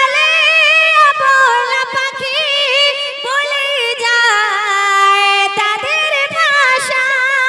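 A woman singing a Bangla gojol solo into a handheld microphone, holding long notes with a wavering, ornamented melody.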